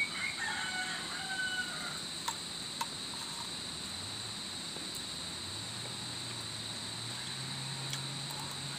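A rooster crows once at the start, a call of about two seconds, over a steady high drone of insects.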